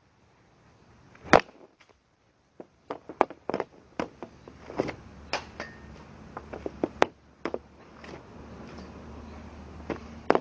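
Hockey stick striking a puck off a plastic shooting pad: one loud crack about a second in, followed by a string of lighter, irregular clacks of the stick blade working the puck on the pad.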